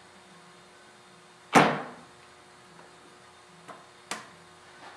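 A sharp metallic clank about one and a half seconds in that rings out briefly, then two lighter metal clicks near the end as a hand works the lathe's tailstock lever, over a steady low hum.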